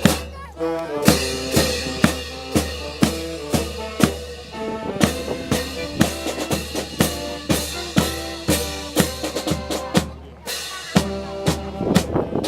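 Brass band playing a march, with held brass notes over drums keeping a steady beat of about two a second. The music drops out for about a second near the end, then starts again.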